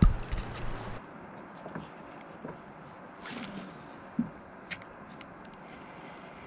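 Camera handling noise: a loud knock as a hand grabs the action camera, with a low rumble for about a second, then faint wind and water hiss with a few small clicks and a brief rustle.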